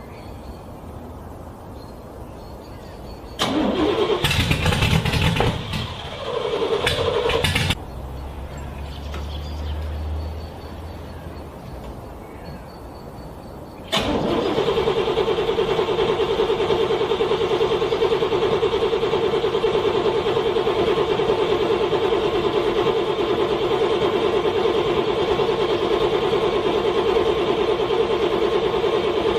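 A car's starter cranking a cold engine in freezing weather. A loud, ragged burst of cranking and engine noise comes a few seconds in. About halfway through, a long, steady, fast whirring crank starts suddenly and goes on unchanged without the engine catching, then cuts off abruptly at the end.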